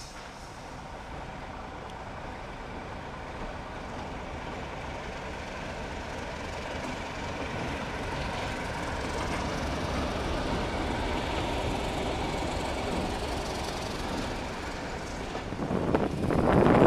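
Class 31 diesel locomotive 31108, with its English Electric engine, hauling coaches over a girder bridge: a steady rumble of engine and wheels that builds as it passes close by and then eases off. Much louder locomotive noise breaks in near the end.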